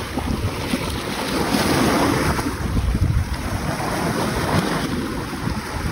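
Sea waves washing on the shore, swelling about two seconds in, with wind buffeting the microphone.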